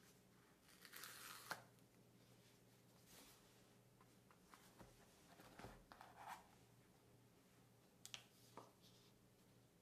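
Faint handling of a cardboard Samsung Galaxy S23 Ultra box: a short tearing rasp as the seal tab is pulled off about a second in, then soft scrapes and light taps as the box is turned and its lid lifted off the phone.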